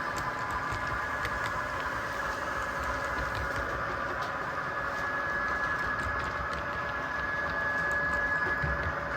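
HO scale model locomotive running on the track: a steady motor whine with faint, irregular clicks from the wheels over the rails.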